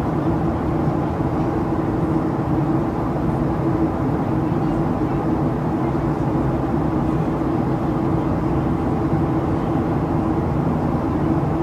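Steady cabin noise inside a Boeing 737-800 in flight: a constant rush of air over the fuselage with the drone of its CFM56-7B engines, several steady low hums running underneath without change.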